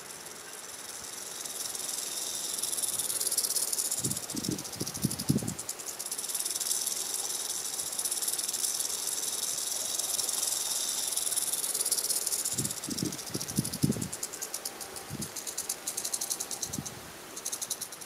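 Prairie rattlesnake rattling its tail: a high, hissing buzz that swells in over the first couple of seconds, becomes coarser and more broken in the last few seconds, and stops abruptly. A few clusters of low thumps come under it.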